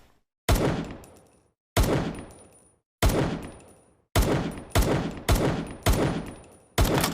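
Makeshift M1911 pistol sound effect: eight sharp gunshot-like bangs, each with a ringing tail. The first three come about a second apart, then five come in quicker succession.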